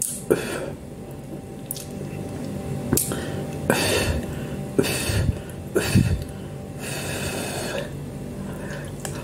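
A person slurping and chewing instant noodles: a string of short wet slurps and mouth sounds, the longest near the end.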